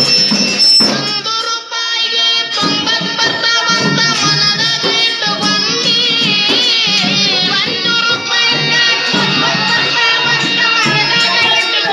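A song: a voice singing over drums and other instruments. The bass drops out for a moment about a second in, then the beat returns.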